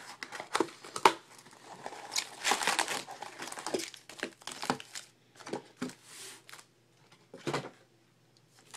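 A cardboard trading-card box being opened and its foil-wrapped card packs handled and set down on a table: foil crinkling, cardboard scraping and sharp knocks. The handling is busiest about two to three seconds in, with one last knock near the end.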